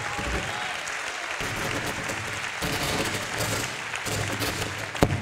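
Congregation clapping and applauding steadily in praise, with a single sharp click near the end.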